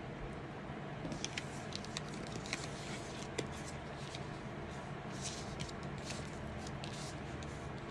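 Tarot cards being shuffled and handled: an irregular run of soft papery flicks and taps.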